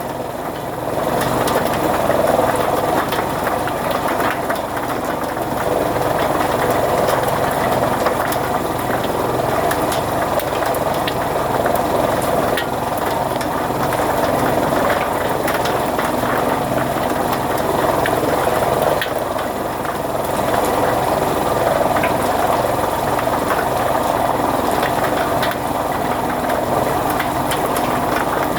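Chaff cutter (fodder-cutting machine) running steadily.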